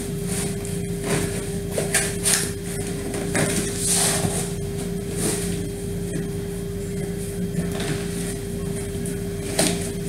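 A tripod being pushed and worked down into its cardboard box: scattered scrapes and rustles of cardboard and packaging. A steady low hum runs underneath.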